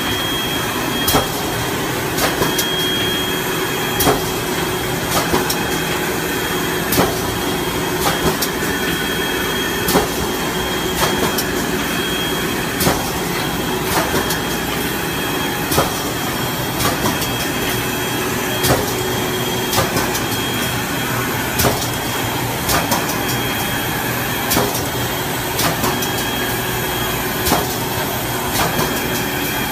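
PE liner inserting-cutting-sewing machine for PP woven sacks running continuously, a steady mechanical din with a thin high whine and sharp clacks of its mechanism roughly once a second as it works through the sacks.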